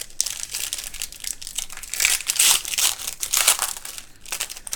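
Foil wrapper of a trading-card pack crinkling and crumpling in the hands, an irregular crackle as a pack is opened and its cards handled.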